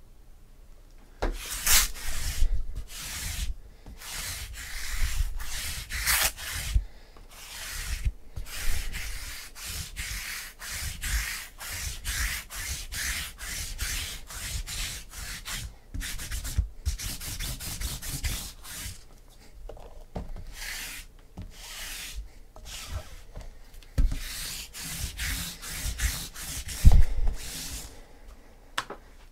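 Hands handling sealed trading-card boxes, making repeated rubbing and scraping noises. They start about a second in, with a few louder scrapes, the sharpest near the end.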